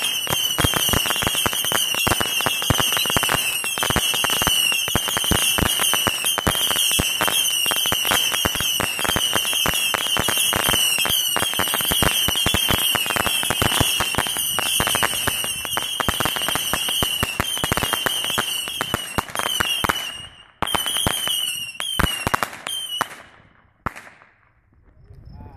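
750-shot consumer firework cake firing a rapid, unbroken stream of small crackling shots. About twenty seconds in the stream thins to a few last separate pops, and then the cake falls silent.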